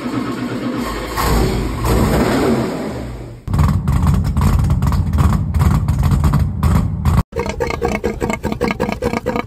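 All-aluminum 632 cubic-inch big-block V8 on an engine dyno, running with uneven exhaust pulses through its open pipes. It gets suddenly louder about three and a half seconds in, and has a brief break a little after seven seconds.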